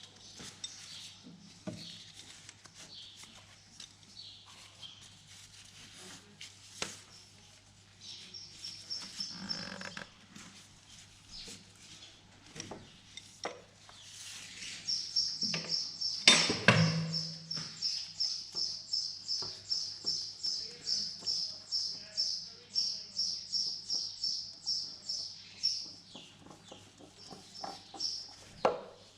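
Scattered metal clinks and knocks of tools being handled, with one loud clank about sixteen seconds in. A bird calls in a rapid run of high chirps through the second half.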